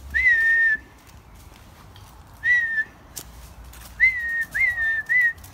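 Whistles calling a dog back: five high, steady, smooth notes with a slight rise at the start of each. One longer whistle comes first, then a short one, then three quick ones in a row near the end.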